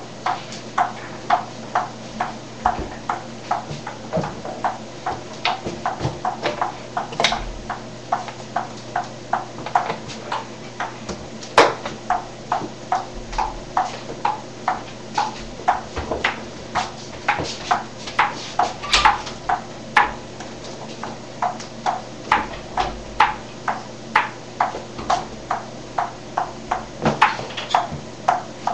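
Table tennis ball being hit over and over, a steady run of sharp pocks about two or three a second without a break.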